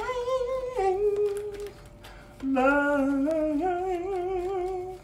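A person humming a slow tune in two long held phrases with a wavering pitch. The second phrase starts about two and a half seconds in, after a short break.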